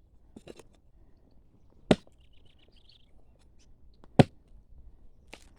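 A hoe chopping into the ground, two sharp strikes about two seconds apart and a lighter knock near the end. A bird trills briefly between the first two strikes.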